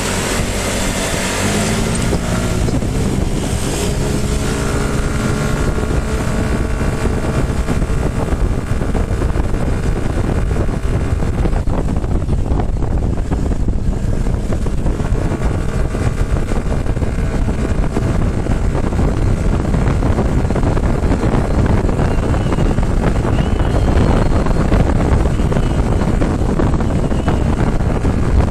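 Single-cylinder scooter engine accelerating hard, its pitch rising over the first few seconds, then running at speed under heavy wind noise on the microphone.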